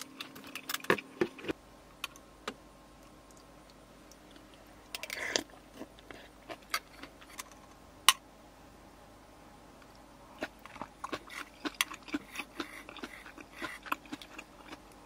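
Spoon clinking and scraping against a stainless steel pot while soup is eaten from it, in scattered light clicks with one sharper knock about halfway through and a quicker run of clinks near the end.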